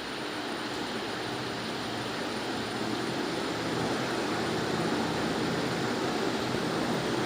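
BLDC ceiling fan running: a steady rush of air that slowly grows a little louder, with a faint steady high whine.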